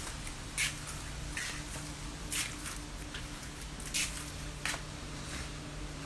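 Hurricane wind outdoors: a steady low rumble with short crackling rustles about once a second.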